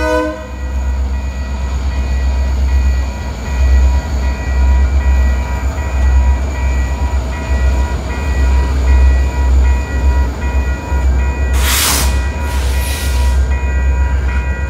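BNSF mixed freight train rolling past, a steady heavy rumble of wheels on rail as the locomotives give way to tank cars and gondolas. A multi-tone horn chord cuts off right at the start, a crossing signal bell dings in an even repeating beat throughout, and two short bursts of hiss come near the end.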